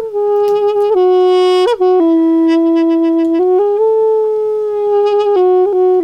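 Balaban, a double-reed pipe of apricot wood with a cane reed, played solo: a slow melody of long held notes that step up and down, with quick grace-note flicks between some of them.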